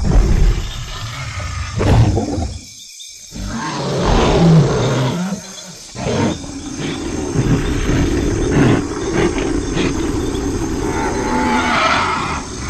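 Dinosaur roar and growl sound effects dubbed onto a silent film: a series of loud roars, broken by short pauses about three and five and a half seconds in, then a long continuous growling roar.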